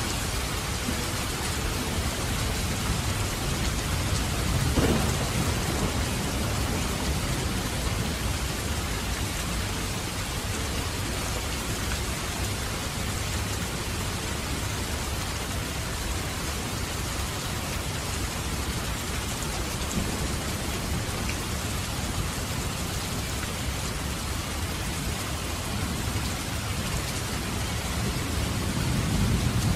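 Steady rain falling. A low rumble of thunder swells about five seconds in, and another near the end.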